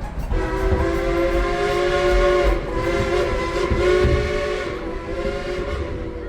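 Steam whistle of a 1938 Baldwin steam locomotive blowing one long blast of about six seconds, several notes sounding at once, wavering in strength a couple of times before fading.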